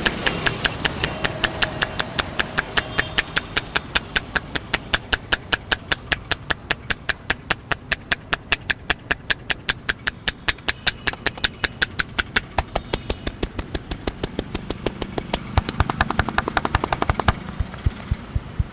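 A barber's hands striking a person's head in a percussive head massage, a rapid, even run of sharp slaps about five or six a second, going quicker and denser near the end, over steady street noise.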